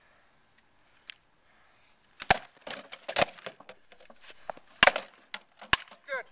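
Sword-and-shield sparring: stick swords knocking against wooden shields and armour in a quick, uneven flurry of sharp hits, starting about two seconds in, with four strikes standing out as the loudest.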